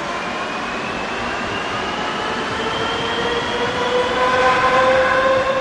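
Madrid Metro 3000-series electric train pulling out of the station. Its traction motors give a whine of several tones that rises steadily in pitch as it gathers speed, over the rumble of the wheels, getting a little louder in the second half.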